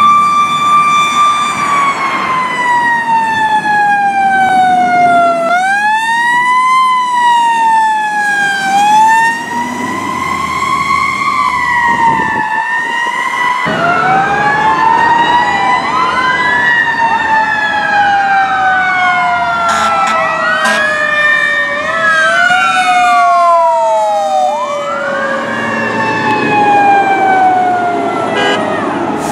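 Fire apparatus sirens wailing in slow rising and falling glides. About twelve seconds in the sound cuts, and after that two or more sirens sound at once, out of step with each other.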